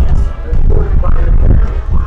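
Marching band playing, with a strong low rumble underneath.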